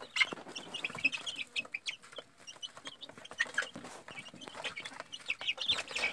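A brood of young caipira (free-range) chicks, about two weeks old, peeping: many short, high cheeps overlapping and repeated throughout.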